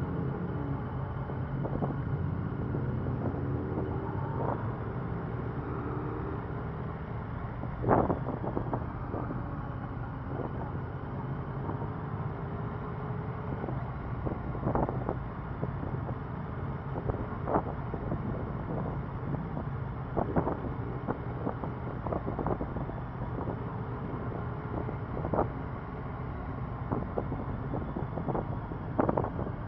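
Motorcycle engine running at low speed with wind noise on the microphone, its pitch gliding up and down briefly in the first few seconds. Scattered sharp ticks occur throughout, the loudest about eight seconds in.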